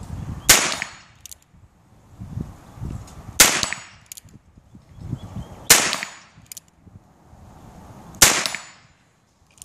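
Four shots from a Heritage Arms Rough Rider .22 LR single-action revolver, each a sharp crack, spaced two to three seconds apart. Every round fires with no misfire, showing the revolver working reliably again after its cylinder-bushing repair.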